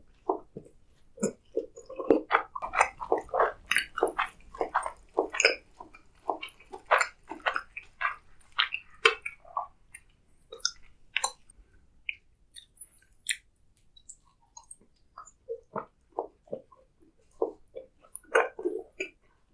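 Close-miked chewing and mouth sounds of someone eating. The chewing is busy for about the first ten seconds, sparser for a few seconds, then picks up again near the end.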